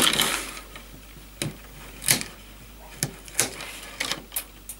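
Hand cutters snipping through the ends of rattan centre-cane basket stakes: a series of about eight sharp, irregularly spaced snips.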